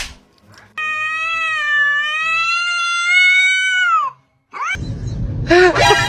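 A kitten giving one long, drawn-out meow of about three seconds, held at a fairly steady high pitch and falling away at the end. Near the end a noisy stretch with short voice-like sounds follows.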